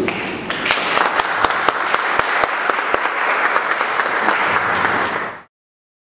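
An audience applauding: a dense patter of many hands clapping that cuts off abruptly to silence near the end.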